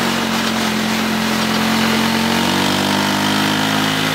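Honda ATC three-wheeler's single-cylinder engine running steadily at low speed while towing, its pitch rising slightly in the second half, over a steady hiss.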